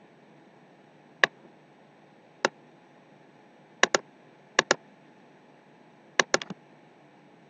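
Computer mouse button clicks over a faint hiss: single sharp clicks at first, then quick pairs, and a short flurry of three or four near the end.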